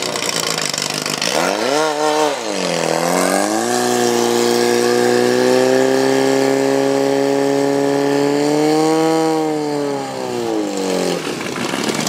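Portable fire pump's engine running at high revs while pumping water through the hose lines. It revs up, dips briefly, then holds a steady high pitch for several seconds before winding down near the end as the run finishes.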